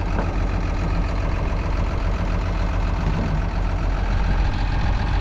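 A diesel engine idling steadily.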